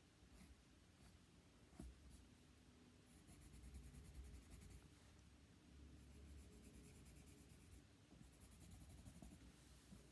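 Faint scratching of a writing tool moving on paper, in stretches of quick, even strokes with a small click about two seconds in.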